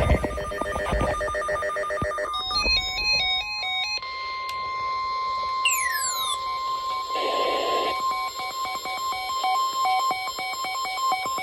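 Emergency Alert System signals from several stations overlapping: rapid warbling data-burst header tones over the first few seconds, then a long steady alert tone. A brief falling sweep and a short hiss sit on top partway through.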